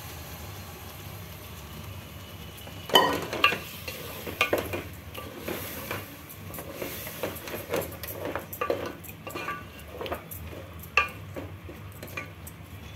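Wooden spatula stirring mutton pieces through thick masala and oil in a metal pot, with irregular scrapes and knocks against the pot, the loudest about three seconds in. A low sizzle of the masala frying on a low flame runs underneath.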